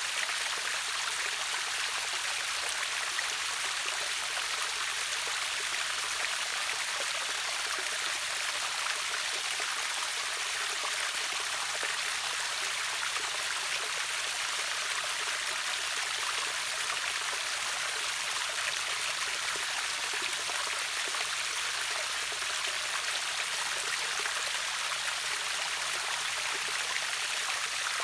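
River water running over a small waterfall: a steady, even rush and splash with more hiss than low rumble.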